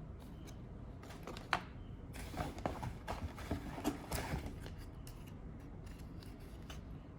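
Packaging being handled and opened by hand: rustling, scraping and a run of small clicks, with one sharp click about a second and a half in.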